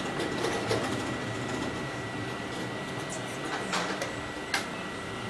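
Hydraulic CNC sheet-metal folding machine running: a steady mechanical hum with a thin, constant high whine, and a few sharp clicks.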